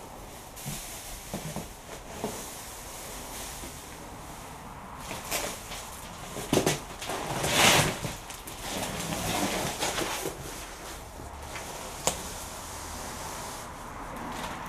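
A cardboard box being handled and dragged, with rustling and scraping and a loud burst of cardboard scraping about halfway through, then a single sharp click a few seconds later.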